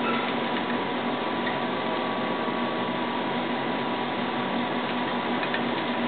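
Steady hiss with a faint constant hum, with a few faint ticks near the end.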